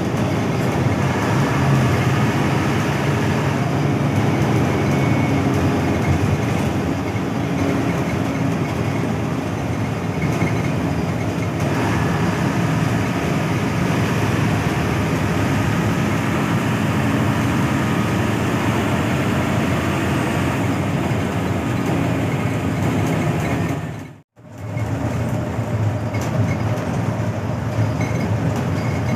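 Hino AK8 front-engined bus under way: a steady rumble of engine and road noise. The sound drops out for a moment about 24 seconds in, then resumes.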